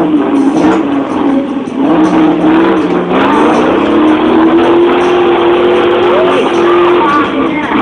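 Off-road 4x4's engine running at high revs under load as it drives through deep mud, climbing in pitch about two seconds in, holding there, then easing off near the end.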